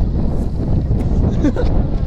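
Wind buffeting the microphone: a steady low rumble, with faint voices.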